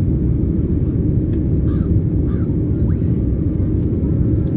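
Steady, loud low rumble of an airliner cabin in flight: engine and airflow noise heard from inside the plane.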